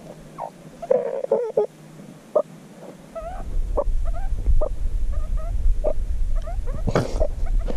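Meerkat chirping and squeaking in a string of short, quick calls at close range, while it sniffs at a person's mouth. About three seconds in, a steady low rumble on the microphone joins the calls.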